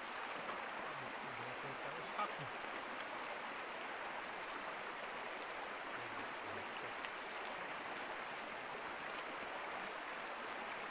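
Steady rush of a flowing stream, with an even high drone of night insects above it and a single faint knock about two seconds in.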